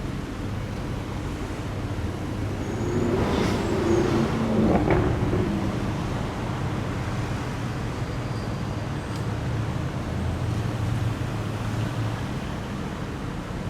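Car engine running in street traffic, swelling louder about three to five seconds in, then a steady low drone.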